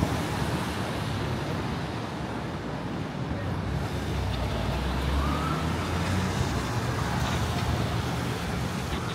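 City traffic on a wet street: cars and taxis running and passing, tyres hissing on the pavement. A low engine rumble swells about four to six seconds in, and a faint distant siren is heard.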